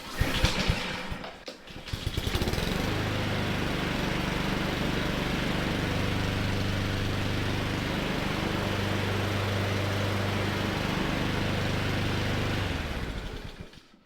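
Freshly serviced Honda GCV160 push mower engine pull-started, catching about two seconds in, then running steadily for about ten seconds before it is shut off and winds down near the end.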